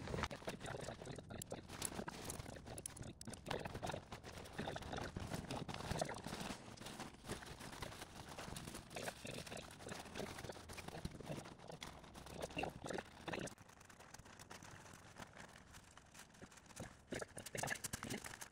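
Handling noise from an inflatable G7 Pod portaledge being deflated, folded and rolled up: irregular rustling and knocking of the nylon mattress and clipped-on gear. It goes quieter about thirteen seconds in.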